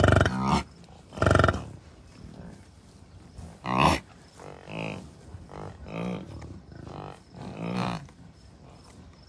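Bison cows and calves of a herd calling, a string of about nine short, low calls. The loudest three come in the first four seconds, with softer calls spaced through the rest.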